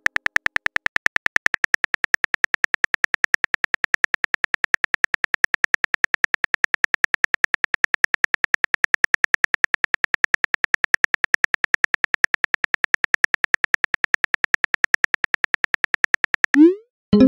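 Simulated phone-keyboard typing clicks, fast and perfectly even at several clicks a second, as a message is typed out letter by letter. Near the end a short rising whoosh, the message-sent sound.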